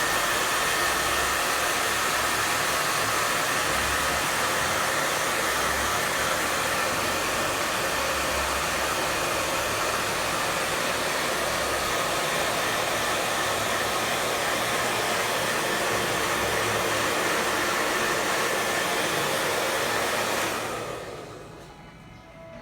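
Hand-held hair dryer running steadily during a blow-dry, switched off about twenty seconds in, its rush dying away over a second or so.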